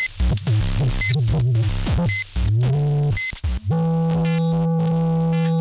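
Instrumental electronic music on analog synthesizers. Short chopped synth notes with quick pitch sweeps give way, about two-thirds of the way in, to one sustained synth chord held steady.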